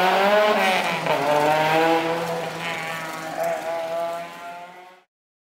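Toyota Corolla AE101's 4A-GE black top twin-cam four-cylinder engine revving as the car pulls away. Its pitch drops at an upshift about a second in, then holds while the sound fades out and cuts off near the end.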